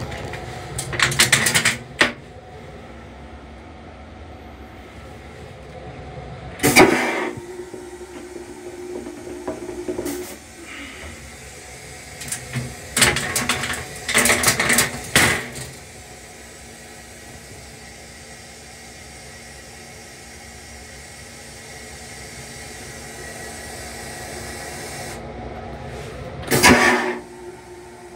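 Long Island Rail Road M3 railcar toilet flushing four times, each a loud rush of a second or two, the second and last followed by a few seconds of steady hum. The railcar's steady running noise lies underneath.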